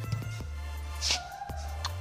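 Background music with a steady bass line and a held melody note, with a few sharp clicks and a short hiss about halfway through.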